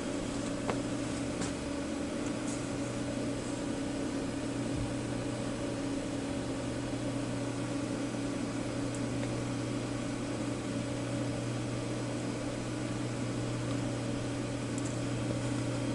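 Steady low electrical hum over an even hiss, with a few faint clicks in the first couple of seconds.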